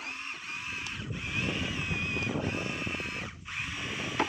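Electric motors of a toy RC excavator whining in short runs of about half a second to a second, with a gritty scraping as its bucket digs through dirt.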